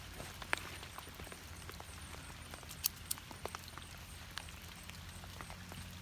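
Night-time outdoor ambience: a faint high insect chirp pulsing a few times a second over a steady low hum, with scattered sharp clicks and taps, the loudest two close together about three seconds in.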